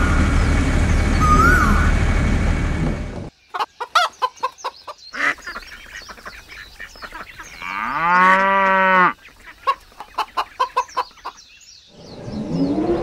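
A loud, busy mix carrying a rising chirp about every two seconds cuts off about three seconds in. Then chickens cluck in short, quick pulses, and a rooster crows once for about a second, around eight seconds in. The loud mix comes back near the end.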